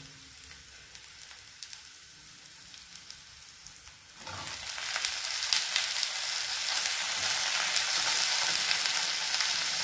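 Onion, green chili and curry leaves sizzling softly in oil in an earthen clay skillet. About four seconds in, chopped potato is tipped in and the sizzle becomes suddenly much louder and stays loud, with a few light clicks.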